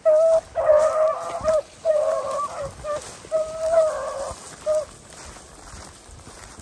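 Beagles baying: five drawn-out bawls, some about a second long, over the first five seconds, the voice of hounds running a rabbit track.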